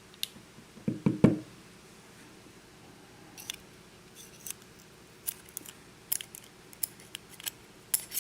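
Small metal lock parts and tools clicking and tapping as pin stacks are worked out of a Russwin lock cylinder: a few knocks about a second in, then a string of sharp, light metallic clicks.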